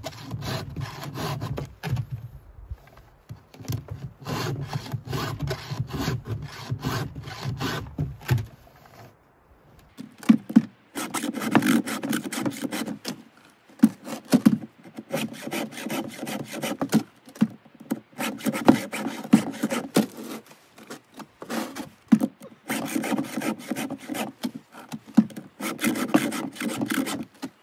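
A chainsaw chain being hand-filed with a two-file sharpening guide: repeated rasping file strokes on the cutters. The strokes stop briefly about nine seconds in, then resume louder.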